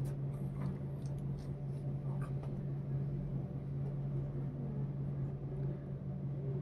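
A steady low hum, with a few faint clicks and light scratching sounds.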